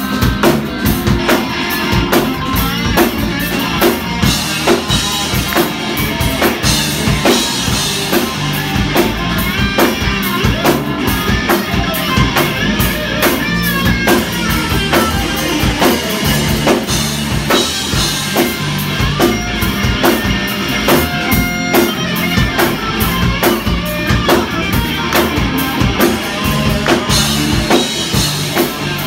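Live band music: electric guitars played over a drum kit keeping a steady beat.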